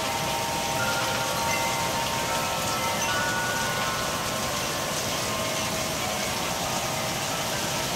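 Tubular wind chimes ringing, several tones sounding and fading, stirred by hurricane winds over the steady hiss of heavy rain.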